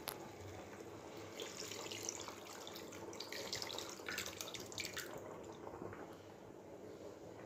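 Liquid poured from a bowl into a pot of masala-coated fish pieces, splashing and trickling as the gravy fills the pot. The pour starts about a second and a half in and eases off about five seconds in.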